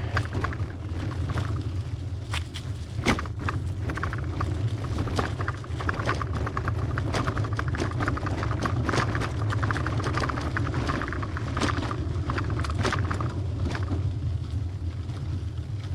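Trek hybrid bicycle riding over a rough dirt trail: a steady low rumble with frequent clicks and rattles as the tyres and frame go over bumps.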